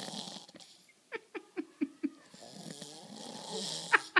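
Heavy snoring: a long rattling snore on the in-breath, then a run of five short popping puffs about four a second on the out-breath. A second rattling snore follows, with the popping puffs starting again near the end.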